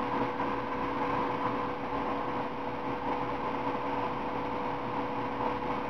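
Steady background hum and hiss with a faint constant tone, with no distinct knocks or clicks.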